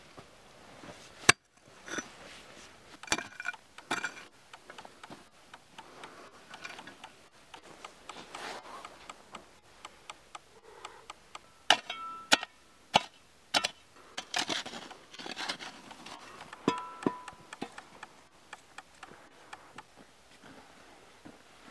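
Irregular knocks and clinks of an iron hoe head striking stony, gravelly soil, a few strikes ringing briefly.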